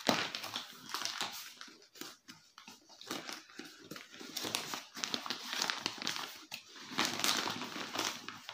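Clear plastic clothing packet crinkling and rustling irregularly as it is opened by hand and a folded linen suit is pulled out of it.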